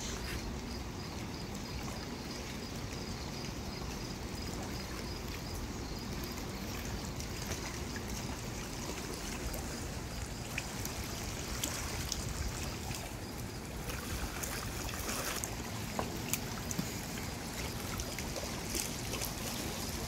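Steady rush of the Niagara River's current flowing past a rocky bank, with a few faint clicks in the middle.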